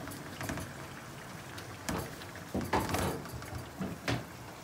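A few scattered knocks and clatters of kitchen utensils and dishes being handled, over a low steady background.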